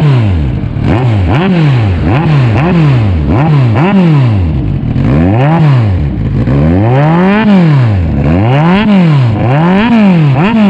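Kawasaki Z1000's inline-four engine revved again and again through an SC-Project muffler held by hand against the exhaust pipe. It gives about ten quick blips, one a second or so, each rising and falling in pitch, with a longer rev about seven seconds in.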